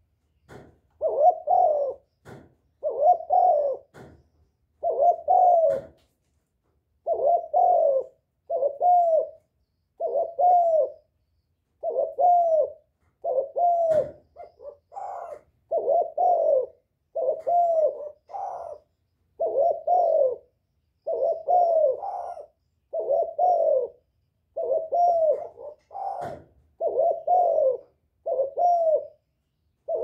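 Spotted dove cooing in a cage, used as a decoy call bird: short phrases of deep coos repeated over and over, about one every one and a half seconds.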